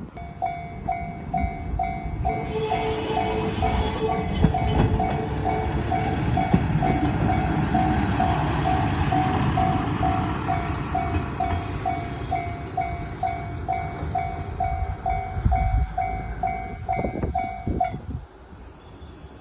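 Japanese level-crossing warning bell ringing rapidly and steadily while a train rumbles through the crossing. The bell and the train noise stop together about eighteen seconds in.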